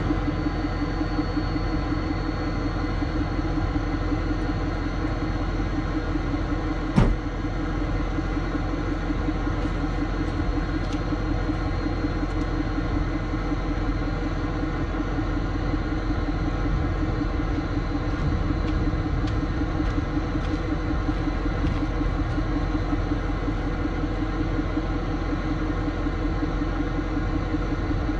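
Tow truck's engine idling steadily, with a single sharp knock about a quarter of the way through.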